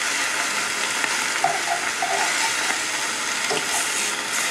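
Ham slices sizzling steadily in a hot cast-iron skillet, with metal tongs scraping and clicking against the pan as the slices are turned.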